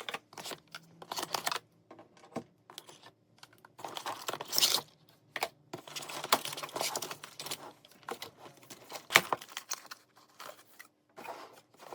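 A product box being unpacked: packaging tearing and crinkling, with irregular clicks and knocks as parts are handled. A longer tearing rustle comes about four seconds in, and a sharp click a little after nine seconds.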